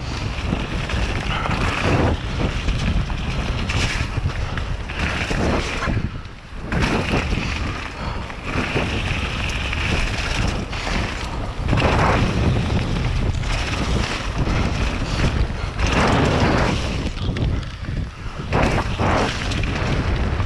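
Mountain bike descending a gravel forest track: tyres rattling and crunching over the stones with wind rushing across the action camera's microphone, a steady rumble that lulls briefly a couple of times.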